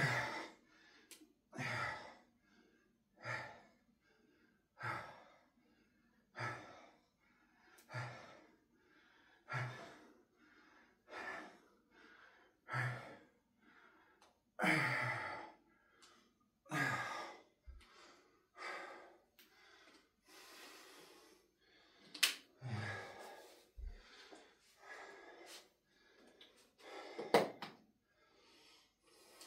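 A man breathing hard through a set of press-ups, with a loud, partly voiced exhale about every second and a half. The breaths turn less regular in the second half, and two sharp knocks come in the last third.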